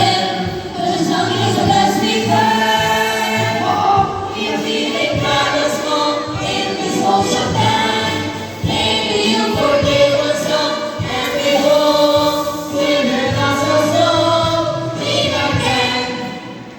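A chorus of voices singing a song together, holding long notes.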